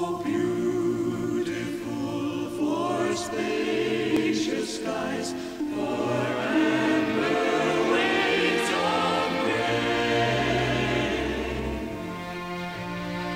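Choral music: a choir singing sustained notes over orchestral accompaniment.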